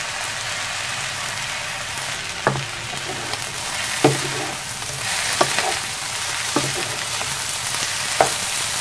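Fried rice sizzling in a hot pan as it is stir-fried with a spatula. There are five short knocks and scrapes of the spatula against the pan over the steady sizzle.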